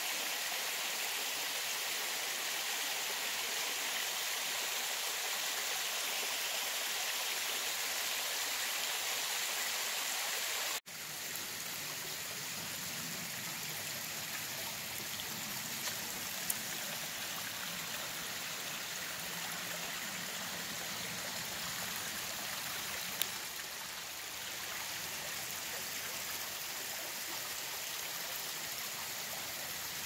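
Thin waterfall trickling and splashing down a rock face, a steady rushing of water. It drops out for an instant about eleven seconds in and carries on a little quieter, with a couple of faint clicks.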